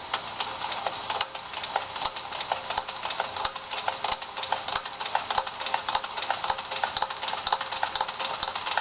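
Wilesco D22 toy steam engine running steadily, its exhaust and mechanism making a rapid, even ticking. It is running on very low steam pressure from a small butane burner.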